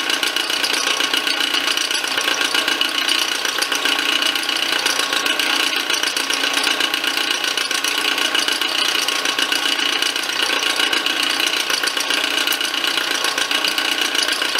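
Milling machine running steadily as a quarter-inch ball-nose end mill cuts a drive-dog notch into a round metal arbor. There is an even, constant whine of several steady tones from the spindle drive.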